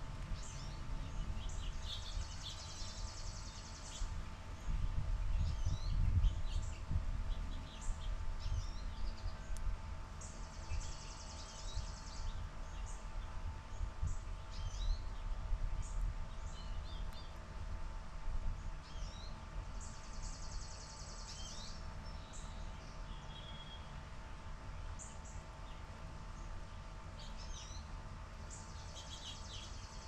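Chipping sparrow songs: a rapid high trill of about two seconds, repeated four times at intervals of eight to nine seconds, with other birds' short chirps in between. Under the song runs a low rumble, heaviest in the first half.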